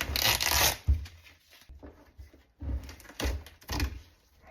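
Adhesive-backed cover being ripped away from a ceramic armor plate: a hard tearing rasp for under a second, then a thump and a few shorter tearing and handling sounds as the plate is worked by hand.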